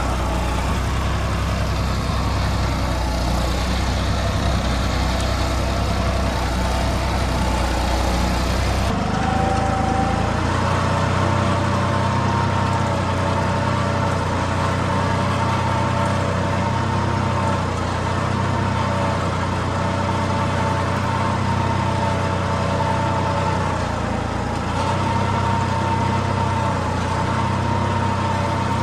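John Deere 5310 tractor's three-cylinder diesel engine running steadily under load as it pulls a reversible mouldboard plough through wet soil. About nine seconds in, the sound changes to a closer, steadier engine note with clear pitched tones.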